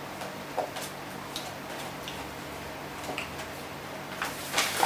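Paper and cardboard takeaway packaging being handled: scattered light taps and rustles, with a louder crinkling rustle near the end.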